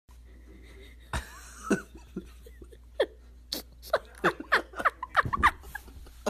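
Soft giggling in many short squeaky bursts, coming thicker from about halfway through.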